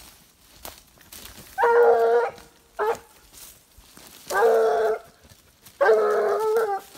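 Young Gascon-cross hound baying: three drawn-out, ringing bays and one short yelp between the first two.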